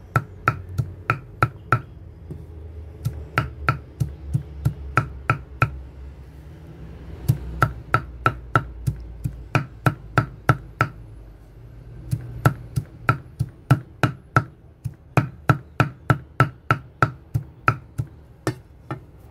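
Wide steel cleaver chopping a heap of sembukan (skunkvine) leaves on a wooden chopping board: sharp knocks about three a second, in runs with short pauses between.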